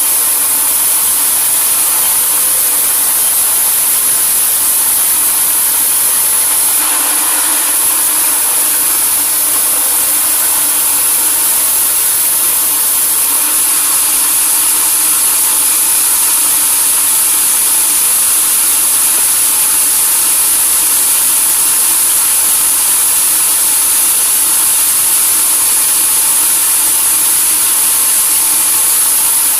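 Sawmill machinery running steadily, a continuous loud mechanical noise with a high whine over it.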